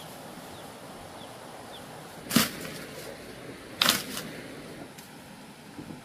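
Two sharp knocks about a second and a half apart, the second with a quick smaller follow-up, over a steady background hiss.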